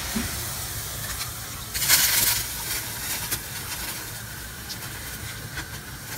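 Grated potato patties sizzling in hot oil in a frying pan, a steady hiss with a louder burst of sizzling about two seconds in.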